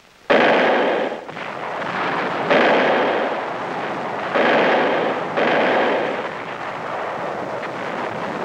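Artillery firing: four heavy reports in the first six seconds, each dying away slowly, followed by a steady din of battle noise.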